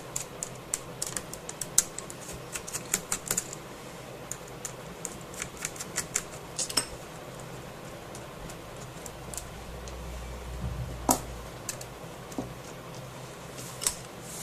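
Quick, light clicks and ticks of a small screwdriver and hands working on the screws and metal brackets of a netbook's LCD panel. The clicks come thick in the first few seconds, then scattered, with one louder knock about eleven seconds in.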